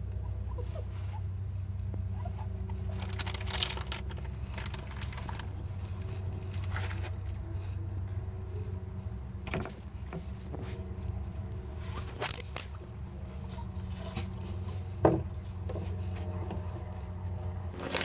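Guinea pigs moving about in wood-shaving bedding on a plywood cage floor: scattered rustles and scratches and a few sharp clicks, the sharpest about fifteen seconds in, over a steady low hum.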